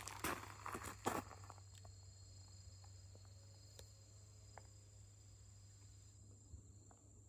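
Insects trilling steadily in two high tones, the lower one dropping out about six seconds in; a few rustling footsteps in the first second or so.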